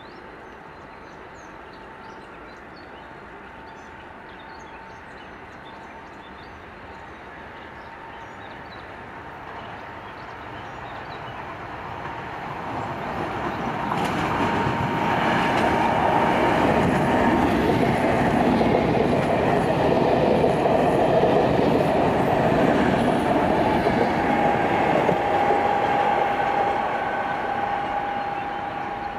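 Electric locomotive hauling passenger coaches approaches, passes close by and draws away. A distant rumble with a steady whine swells from about ten seconds in, stays loud through the middle, then fades near the end.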